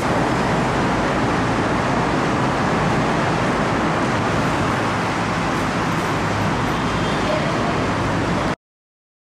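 Steady rushing background noise with no speech, even in level throughout. It cuts off abruptly into dead silence a little before the end.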